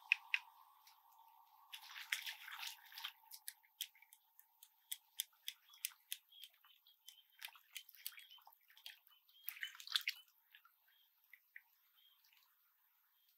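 Small splashes and a rapid run of sharp clicks and taps as a speared fish thrashes in shallow water, with louder splashy bursts about two seconds in and again near ten seconds. The sound is thin, with no low end.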